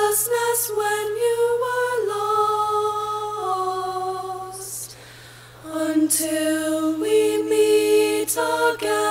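A small group of young women singing a slow blessing song in harmony, holding long notes, with a short break about five seconds in.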